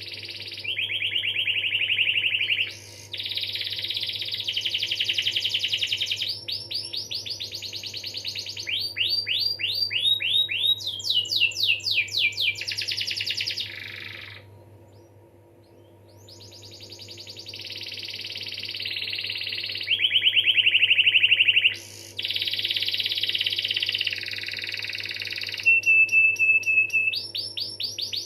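Domestic canary singing a long song of fast rolls and trills, each phrase a rapid run of repeated notes. The song pauses for about two seconds about halfway through, then resumes. A faint steady hum runs underneath.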